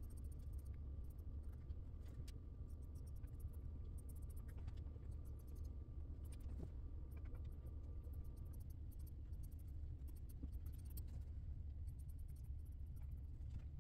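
Scissors snipping and sliding through cotton fabric, faint scattered clicks and scratchy rustles, over a steady low hum.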